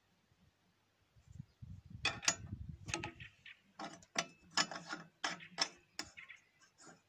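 Pump plug of an old Soviet blowtorch, fitted with a bicycle tyre valve, being screwed by hand into the threaded port of the metal tank. It gives a run of irregular metallic clicks and scrapes, with some low rubbing noise early on.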